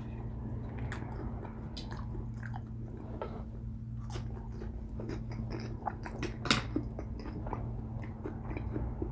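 Close-miked chewing and biting of food, with irregular crunches and wet mouth clicks; the sharpest crunch comes about six and a half seconds in. A steady low hum runs underneath.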